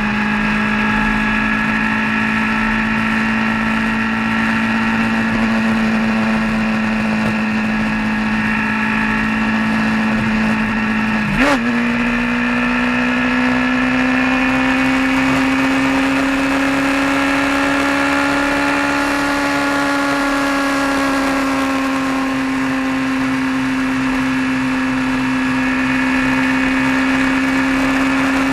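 Vehicle engine running steadily on the road at a constant pitch. About eleven seconds in there is a brief click, and the engine note steps up, rises a little and then holds steady.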